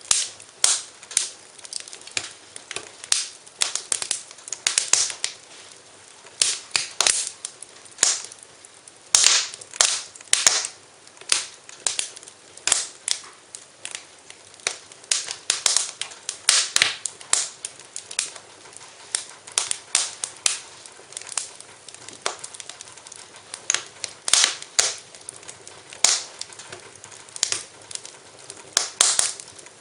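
Wood fire in a fireplace crackling, with frequent irregular sharp pops and snaps over a soft steady hiss.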